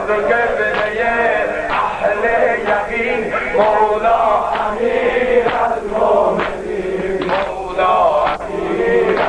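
Male voices chanting a Persian devotional song (maddahi), with a regular sharp beat about once a second.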